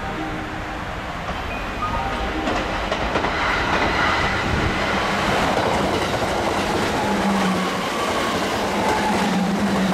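Kintetsu red-and-white electric train passing through the station without stopping. Its wheels clatter and rumble on the rails, getting louder from about two seconds in as it comes close, with a steady low hum strengthening toward the end.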